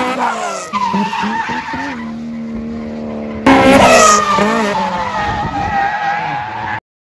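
Drift cars' engines revving hard with tyres squealing and skidding, in a few short edited clips. The revs rise and fall as the cars slide, and the sound cuts off suddenly near the end.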